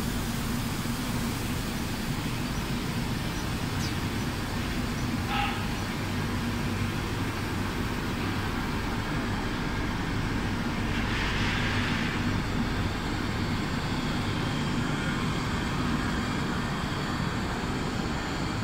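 Steady drone of a wood-door spray-coating and curing line, with extraction fans and conveyors running and a low hum underneath. A brief hiss comes about eleven seconds in.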